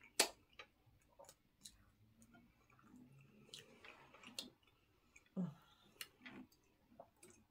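Quiet mouth and eating sounds: chewing, lip smacks and scattered sharp clicks as people eat with their hands, the sharpest click just after the start. A short low murmur about five and a half seconds in.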